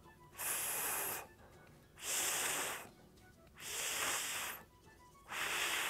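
A man pronouncing the voiceless 'th' sound (/θ/) on its own: four held hisses of breath pushed out between the tongue and upper teeth, each about a second long, with short pauses between.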